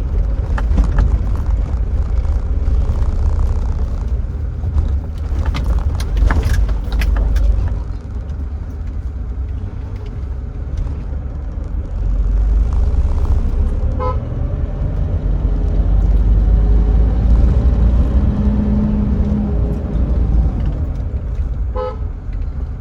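Steady low engine and road rumble of an SUV being driven slowly, heard from inside. Two very short car-horn toots sound, one about two-thirds of the way through and one near the end.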